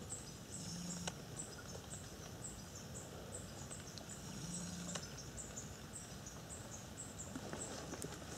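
Quiet riverbank ambience in which a small creature gives a faint, thin, high chirp over and over, two to three times a second, with two short low hums in between.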